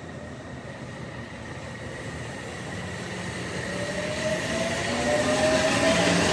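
Odakyu 3000 series electric train pulling away from the platform. Its running noise grows steadily louder, and from about halfway its motor whine rises in pitch as it gathers speed.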